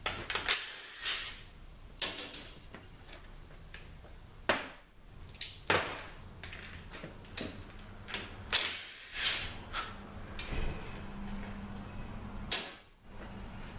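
Irregular metallic clicks and clinks of hand tools and bolts being handled as bolts are taken out of an automatic transmission case, over a faint low steady hum.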